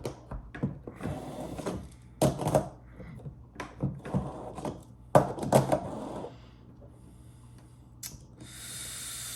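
Irregular clicks, knocks and rubbing as skateboard wheels and their hardware are handled and fitted. Near the end comes a steady hiss lasting about a second.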